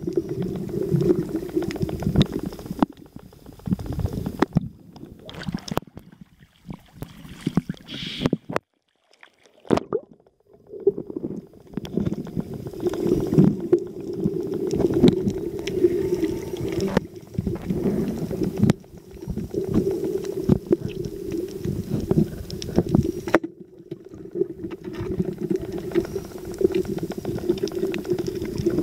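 Muffled underwater sound picked up by a camera in a waterproof housing: irregular bubbling and gurgling water over a steady low hum, dropping out briefly a few times, longest about a third of the way through.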